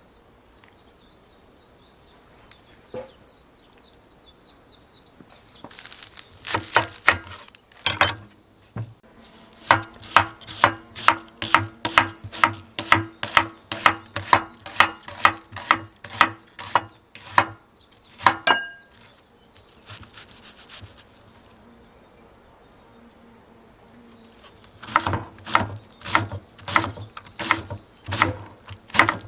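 A knife chopping on a wooden cutting board in steady knocks about two a second, in two runs with a pause between. Insects trill faintly at the start.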